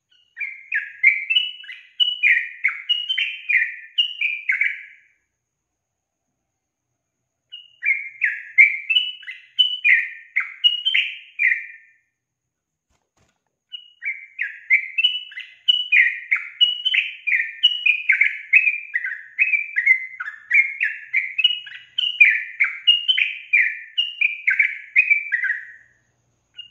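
Female yellow-vented bulbul (trucukan) singing three bouts of rapid, chirping notes with silent pauses between them; the third and longest bout starts about fourteen seconds in.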